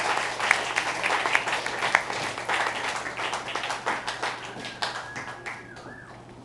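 Small audience applauding, the clapping thinning out and fading away over the last couple of seconds.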